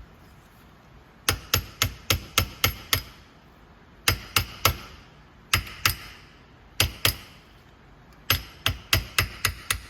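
Hammer tapping a pin to drive it out of a Hypro D30 pump regulator, metal on metal, in five bursts of quick sharp taps with a short ring after each. The regulator is pretty seized up, so it takes repeated blows.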